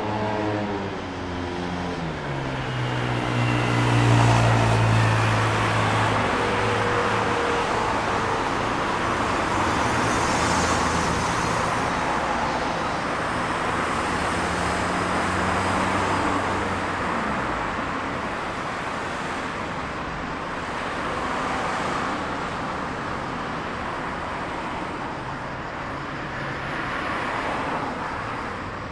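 City street traffic: cars passing, with continuous engine and tyre noise. A vehicle's engine drops in pitch as it passes in the first seconds, and a low engine hum is loudest about four seconds in before the traffic settles to a steadier level.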